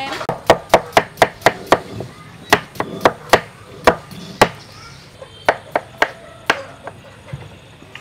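Stone pestle pounding in a stone mortar. There is a quick run of sharp knocks at about four a second, then spaced strikes with pauses between them.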